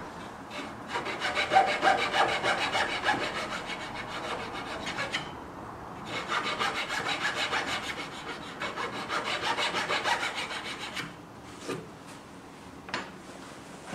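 A small steel file rasping back and forth in a saw kerf cut across an oak miter corner, cleaning out the slot for a spline. It goes in two spells of quick, even strokes with a short pause between, followed by a couple of light knocks near the end.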